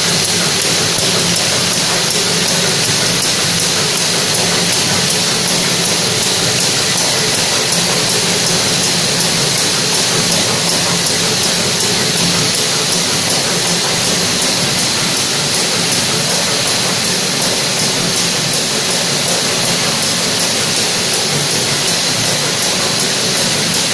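Four-track pharmaceutical strip packing machine running at a steady speed, sealing tablets into foil strips, with a continuous mechanical whir and hiss.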